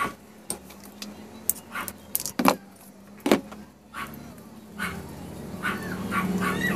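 Sharp clicks and knocks of pliers and wire cutters being handled and set down on a wooden workbench, about a dozen in all. In the last couple of seconds a low engine hum grows louder underneath.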